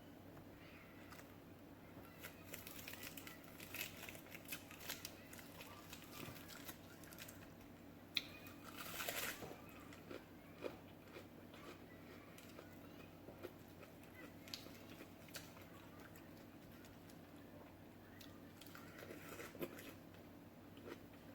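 A person eating close to the microphone: quiet chewing and biting with scattered small crunches and clicks, and a louder stretch of crunching about nine seconds in.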